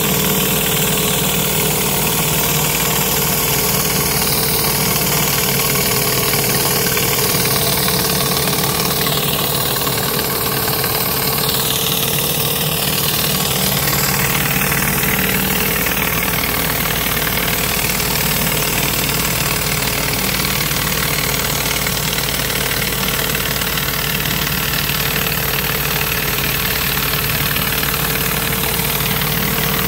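Pressure washer engine running steadily, with the hiss of high-pressure water jets from a Sprinjet rotary surface cleaner spinning over wet concrete.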